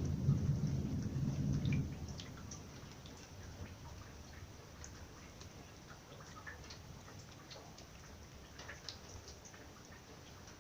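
The tail of a thunder rumble that dies away about two seconds in, followed by scattered raindrops ticking and dripping in a thunderstorm.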